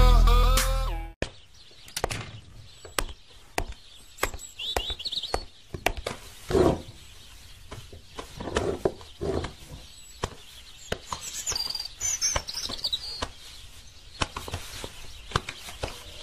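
Hip-hop music cuts off abruptly about a second in. Then come scattered knocks, clicks and rustling from hands rummaging through clothes in a wooden drawer, with a few short bird chirps in the background.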